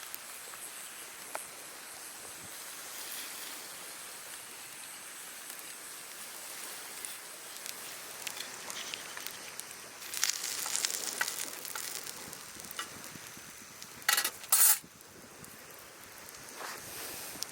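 Food sizzling in a copper sierra cup, a steady high hiss that grows louder for a couple of seconds about ten seconds in, with two short loud bursts a little later.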